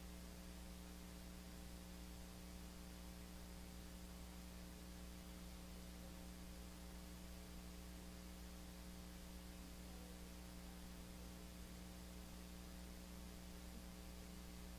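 Near silence: a steady electrical hum with a faint hiss and no speech.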